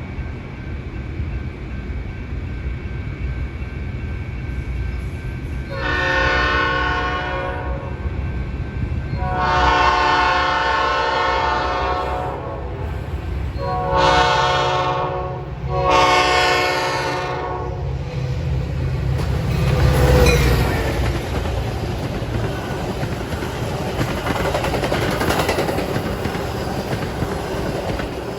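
A Metra commuter train's locomotive air horn sounds four chord blasts, the third the shortest, over the low rumble of the approaching diesel locomotive. After the horn, the train passes with steady wheel-on-rail clatter.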